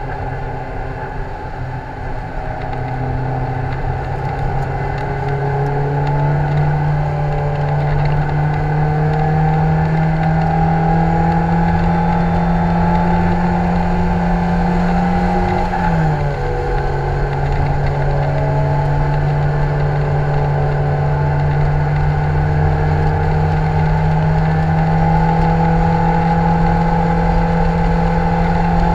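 Lotus Elise 111R's Toyota 2ZZ-GE 1.8-litre four-cylinder engine pulling hard under load, its pitch climbing steadily through the revs. About halfway there is a quick upshift, the note dropping and then climbing again, with wind rush around the open cockpit.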